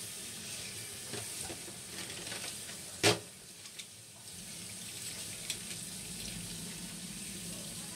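Kitchen tap running into a stainless steel sink as chopsticks are rinsed under the stream, with a single sharp clack about three seconds in and a few light clicks later.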